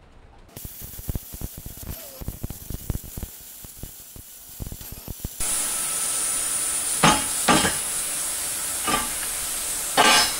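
Plasma cutter cutting steel plate. First comes an irregular crackle over a faint hiss, then from about five seconds in a steady loud hiss with a thin high whistle, broken by a few short, louder bursts.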